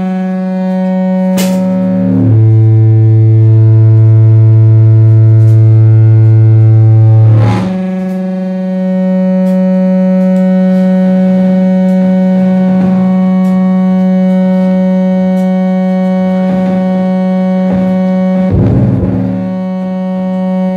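Saxophone feedbacker: a saxophone with a loudspeaker fixed to its body, feeding back through the tube to sound a loud, sustained drone with many overtones. The pitch drops to a lower note about two seconds in, returns to the higher note about seven and a half seconds in and holds, with a short rough, noisy flutter near the end.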